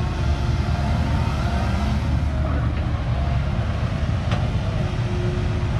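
Heavy diesel machinery running steadily with a deep rumble: an excavator's engine working while loading a six-wheel dump truck. A single short click sounds about four seconds in.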